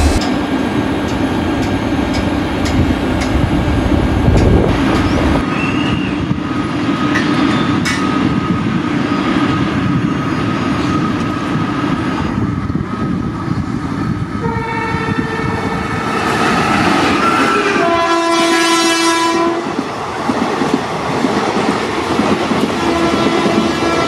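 Indian Railways express train running past, its wheels clattering over the rail joints. In the second half a locomotive air horn sounds in several blasts of different pitch, the loudest and longest a low blast about 18 to 19.5 seconds in, with a short blast near the end.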